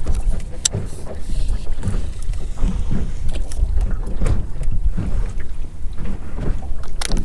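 Small Johnson tiller outboard motor running with a steady low rumble, with wind gusting on the microphone.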